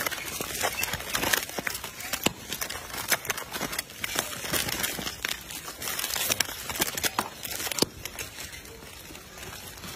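Dense, irregular crinkling and crackling of plastic wrapping and cardboard as a crowd of macaques snatch bagged buns and bread rolls from the pile, with scuffling of hands and feet. The crackling thins out near the end.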